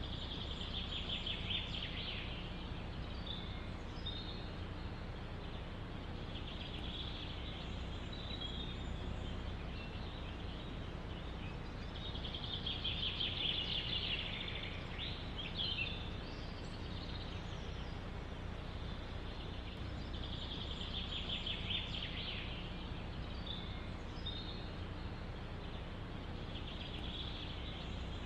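A songbird repeats a rapid trilled song of about two seconds roughly every six to seven seconds, with short chirps between, over a steady low background rumble.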